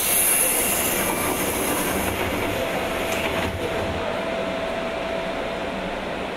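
Running sound inside a JR 201 series electric train's motor car: a steady rumble of wheels on rail. A sudden rise of hiss at the start fades over about two seconds, and a faint steady whine sounds through the second half.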